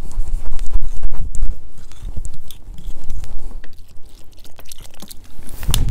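Metal fork stirring and scraping a thick, wet spice paste in a glass bowl, with irregular clicks of the fork against the glass.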